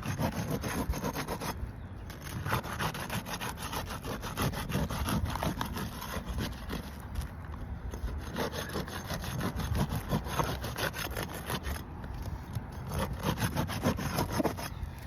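Asphalt roof shingles being pried up with a flat pry tool: continuous rough scraping and rasping of the tool and shingle tabs against the shingles beneath, in uneven strokes.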